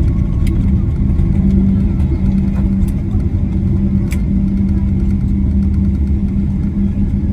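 Steady low rumble of an airliner cabin during landing, with a constant low hum and a few faint clicks.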